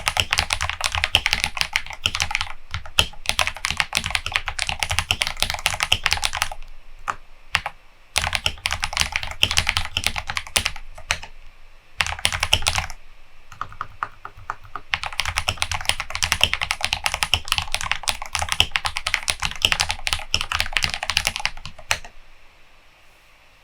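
Typing on a KBD67 Lite R2 mechanical keyboard fitted with Holy Panda tactile switches and XDA Milk Honey keycaps. The keystrokes come in fast runs with short pauses and stop near the end.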